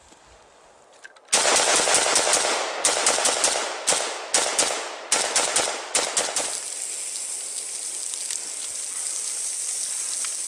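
A rifle with bacon wrapped around its barrel firing rapid shots, starting about a second and a half in and lasting about five seconds, first as a dense unbroken burst, then in shorter bursts. A steady hiss follows for the last few seconds.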